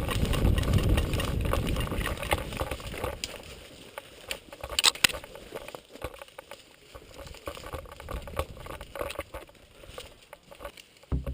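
Footsteps and rustling through woodland underbrush, an irregular run of crunches and clicks, heaviest in the first few seconds, with a sharp cluster of clicks about five seconds in.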